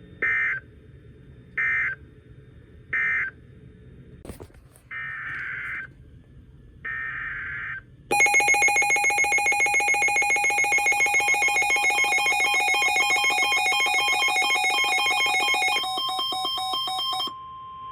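Emergency Alert System weather radio signals. First come three short buzzy data bursts about a second and a half apart, the coded end-of-message closing the previous warning, then two longer data bursts. About eight seconds in, a loud pulsing alert tone sounds for some eight seconds, shifts briefly to a different tone, and gives way to a single steady tone near the end.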